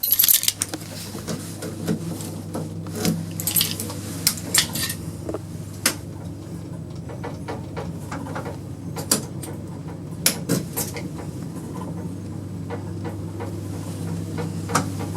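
Passenger lift car travelling between floors: the drive gives a steady low hum, with scattered clicks, knocks and light rattles from the car. A loud clatter right at the start, as the car doors finish shutting.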